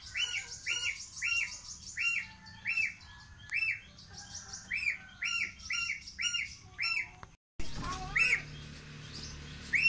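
Young goose peeping over and over, short high calls that rise and fall, about a dozen in the first seven seconds. After a brief cut-out only two more calls come.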